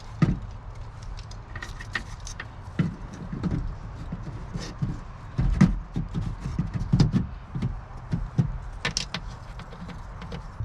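Scattered clicks, taps and knocks of hand work on a truck door speaker mount and panel, irregular and a few a second, over a low steady hum.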